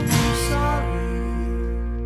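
Background music with guitar; a held chord rings on and fades away in the second half.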